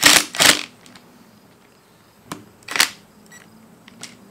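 Ryobi 18V One+ impact driver hammering in short trigger bursts: two close together at the start and a third a little before three seconds in, with a few light clicks between.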